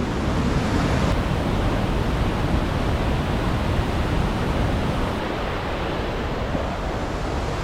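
Steady rush of river water over rapids and small falls, a constant even roar.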